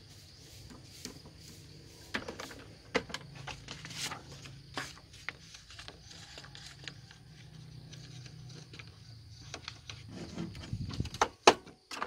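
Epson L565 inkjet printer running a copy job: a steady low motor hum with irregular clicks and knocks from the paper feed and print carriage, louder near the end. It is a test run after the carriage rail, belt and sensor were cleaned of dirt and old grease, to check for the grinding noise.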